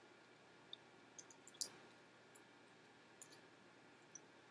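Near silence with several faint, scattered mouth clicks from someone chewing a bite of a chocolate candy cup, the clearest about a second and a half in.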